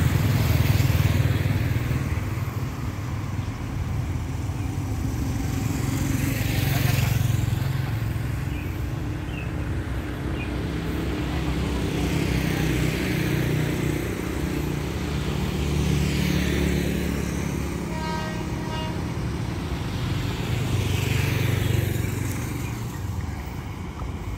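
Road traffic passing close by: motorcycles and cars going past one after another, each swelling and fading over a low running rumble. A short pitched horn sounds once about two-thirds of the way through.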